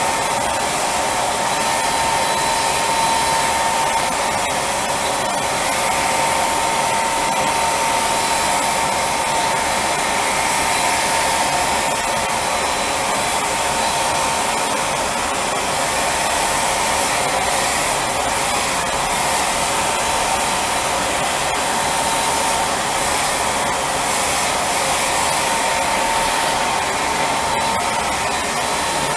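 HVLP spray tan machine running steadily, its turbine blowing air through the handheld spray gun as it mists tanning solution onto skin: a continuous rush of air with a steady whine.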